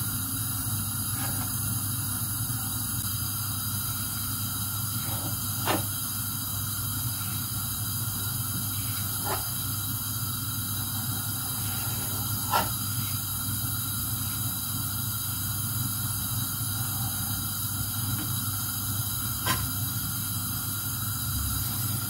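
Large chef's knife cutting a thin sheet of dough into strips on a hard countertop, its blade knocking sharply on the counter a few times, with a steady background hiss throughout.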